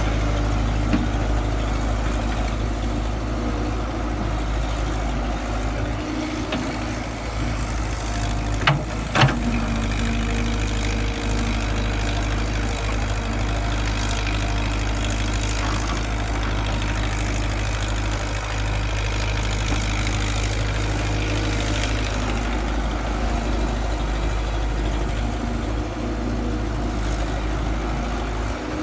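Excavator's diesel engine running steadily, with two sharp knocks about nine seconds in, half a second apart.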